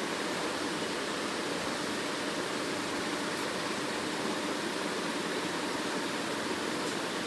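Steady, even hiss of workshop background noise, with no distinct events.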